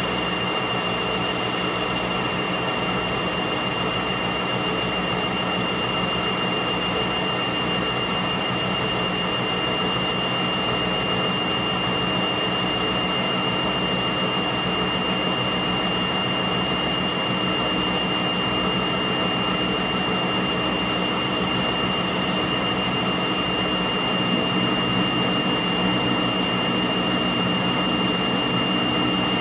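Metal lathe running at speed with a steady high-pitched whine while a boring bar cuts a land inside the spinning bullet-mold cavity.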